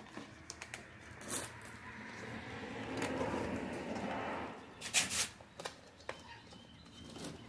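Hard plastic trim on a Nissan 350Z's interior door panel being worked loose by hand: scattered clicks and snaps of clips and plastic, with a longer, rougher stretch of sound from about two to five seconds in as the piece is pulled at.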